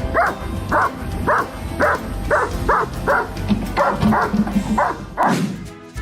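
A dog barking over and over, about two barks a second, over background music.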